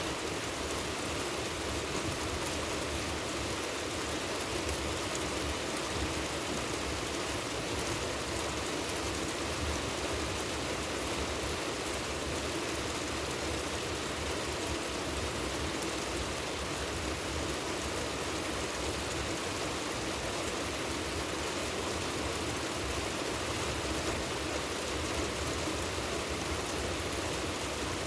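Steady rain falling, a constant even hiss of drops with fine pattering.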